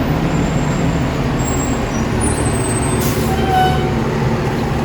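Blower door fan running with a steady loud drone and a low hum, pressurizing the building for a smoke test.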